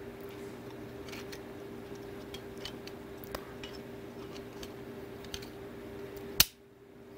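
Light clicks and taps of a steel single-board-computer case being handled as an ODROID-C2 board is lined up inside it and the top housing fitted on, with one sharp metal click near the end.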